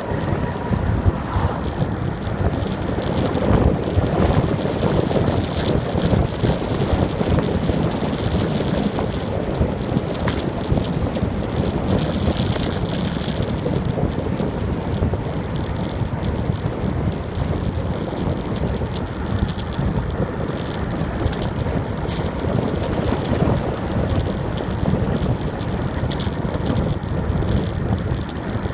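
Bicycle descending at speed on a paved road: wind buffeting the microphone, over steady tyre noise and the rattle of the bike on the asphalt.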